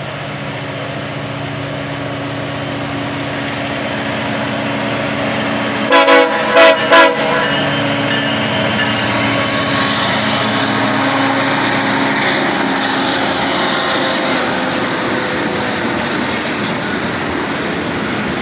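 Diesel freight locomotives approaching and passing, engines running with a steady rumble, with a quick run of short, loud horn toots about six seconds in: a toot of recognition. The rolling noise and clatter of the freight cars going by follows.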